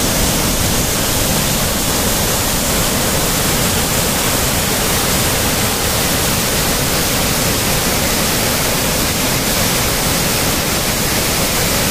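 A waterfall in heavy flood, with a large volume of water pouring over rocks and churning through a rocky gorge. It makes a loud, steady, unbroken rush.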